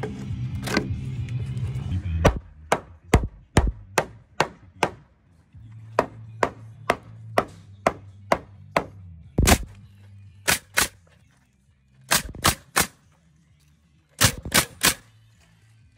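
Hammer blows on softwood timber: a chisel struck to clean out a housing in a stud, then a claw hammer knocking a diagonal brace into its notch, a long run of sharp separate strikes at an uneven pace. Near the end come a few quick shots from a nail gun fixing the brace.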